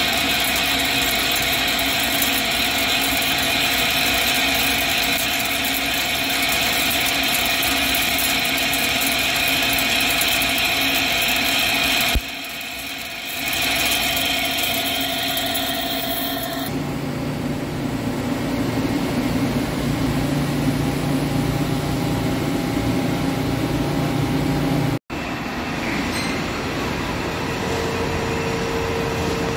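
Hankook PROTEC-9NC CNC lathe turning a stainless steel roll: the spindle and cutting insert run steadily with a high tone over the machine's hum. The sound shifts at edits about 12 and 17 seconds in. It breaks off about 25 seconds in, then carries on as a quieter steady machine noise.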